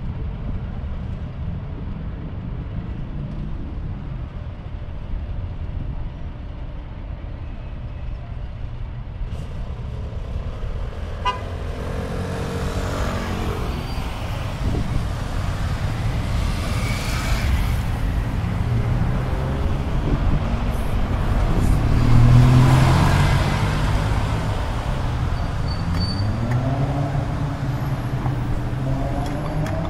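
Busy city street traffic: a steady low rumble of cars passing, with vehicle engines rising and falling in pitch as they pull away through the intersection, loudest about two-thirds of the way in.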